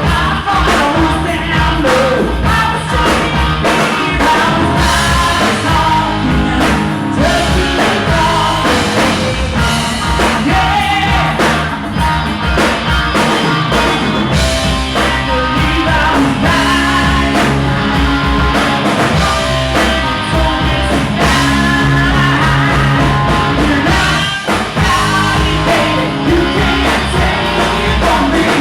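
Live rock band playing a song, with a singer over guitar and drums.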